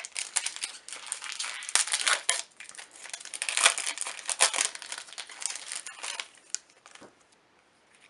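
A Magic: The Gathering booster pack's foil wrapper being crinkled and torn open by hand: a dense crackling that dies away about six and a half seconds in.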